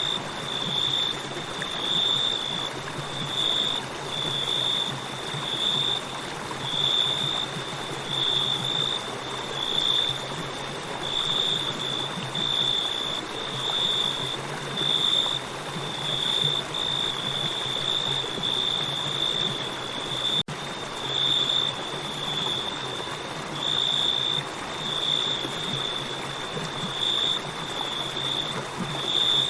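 River water flowing steadily, with crickets chirping in a high, even pulse about once a second over it.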